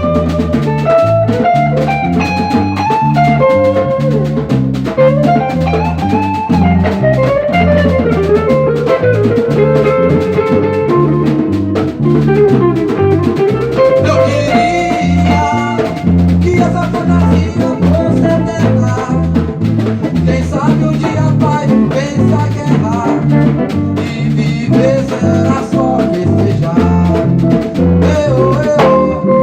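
A band plays an instrumental passage: a melodic lead line, likely guitar, wanders and slides over bass and drums keeping a steady groove. Brighter cymbal-like playing joins about halfway through.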